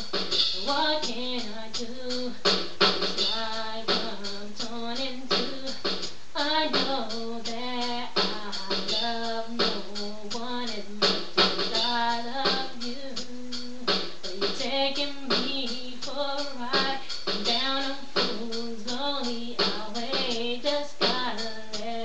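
Music: a song with a sung vocal line over a beat.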